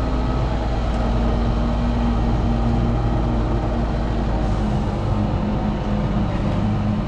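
Fendt 716 Vario tractor's diesel engine running steadily with a constant low drone, as it works with a slurry tanker.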